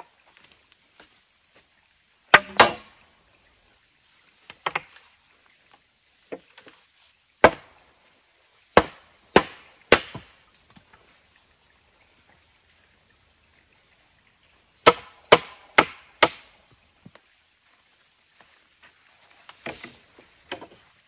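A blade chopping into wood: sharp single strikes with long pauses between them, and two short runs of quick blows, three and then four in a row.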